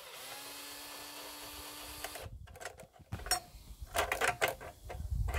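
Cordless drill-driver running steadily for about two seconds as it backs out a screw holding a circuit board, then stopping suddenly. A few light clicks and knocks follow as the drill is put down and the board is handled.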